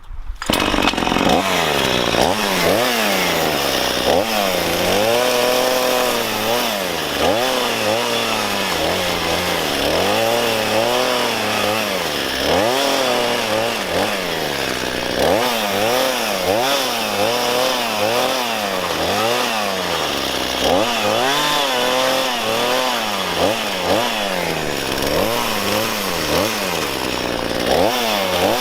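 Two-stroke chainsaw used as a chisel to cut into timber. It starts at once at high revs, and its pitch rises and falls over and over as the bar bites into the wood and frees up.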